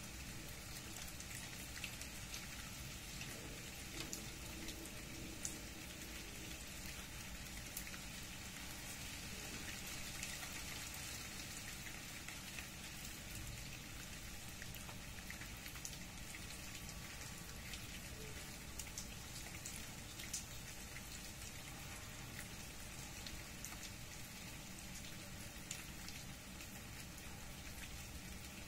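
Steady rain falling, an even hiss of drops with scattered sharper individual drops ticking now and then.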